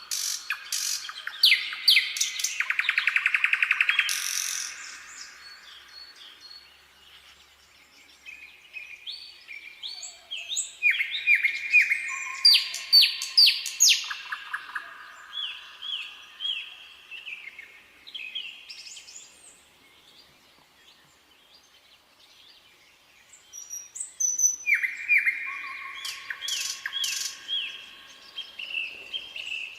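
Nightingale singing in spring: phrases of rapid repeated notes and trills, with a fast buzzing trill a few seconds in. The phrases come in three bouts separated by pauses of several seconds.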